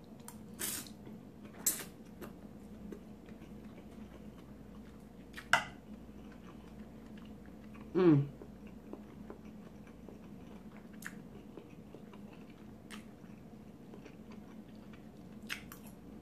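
A person chewing a mouthful of spaghetti salad close to the microphone, with scattered short wet clicks of the mouth and a brief hummed "mm" falling in pitch about eight seconds in.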